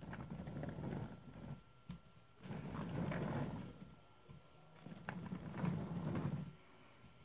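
Office chair swivelling in three spurts of about a second and a half each, a low rumble from the turning chair with short quiet gaps between.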